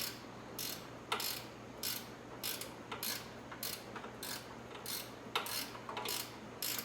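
Ratchet wrench clicking in a run of short back-and-forth strokes, roughly one to two a second, as it turns a turn-signal mounting bolt; the bolt is being turned the wrong way, tightening instead of loosening.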